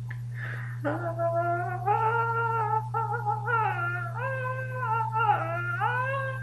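A person humming a wordless tune, starting about a second in, with long held notes that slide up and down in pitch, over a steady low hum.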